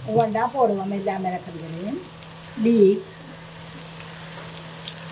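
Vegetables frying in oil in a nonstick wok, a faint steady sizzle with fine crackling. A voice-like wavering sound comes and goes over it in the first three seconds, loudest just before the third second.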